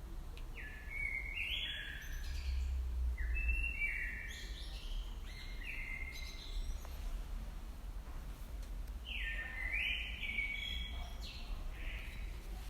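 Songbird singing in three short bursts of clear whistled notes, each burst stepping between pitches with quick downward slides, over a low background rumble.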